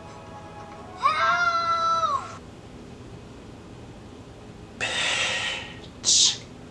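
A cat's single drawn-out meow about a second in, rising, holding and falling. It is followed near the end by two short breathy hissing noises.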